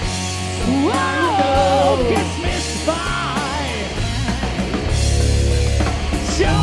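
Live rock band playing on electric guitars and drum kit, with a bending, wavering melodic line on top; the low end gets heavier about four seconds in.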